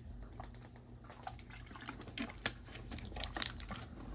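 A person taking a drink: faint scattered clicks and small liquid sounds from handling the drink and sipping, with one louder click about two and a half seconds in.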